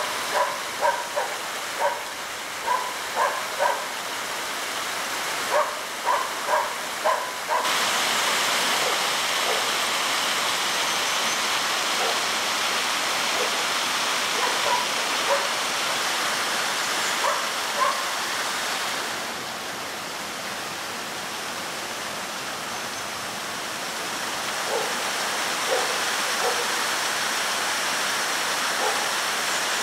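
Shallow mountain stream rushing and splashing over rocks. An animal barks in quick short runs through the first several seconds, with a few scattered barks later. The water grows louder about a quarter of the way in.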